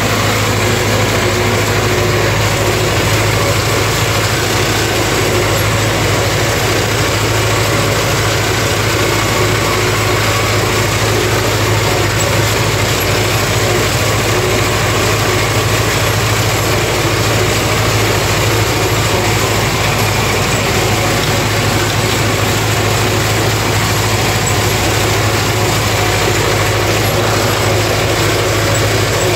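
MTZ-50 tractor's four-cylinder diesel engine running steadily, heard from inside the cab, with a constant low drone while it pulls a ZTR-165 rotary drum mower through embankment grass.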